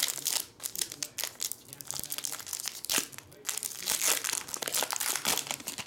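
Foil trading-card pack wrapper being torn open and crinkled by hand, a steady run of sharp crinkles and rustles.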